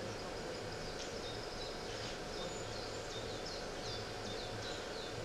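Birdsong played as a theatre sound effect: many short, high, down-slurred chirps repeating over a steady low hum.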